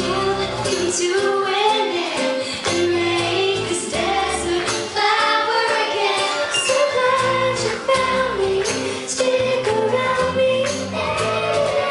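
Pop song with a woman singing lead over a band backing with a steady beat.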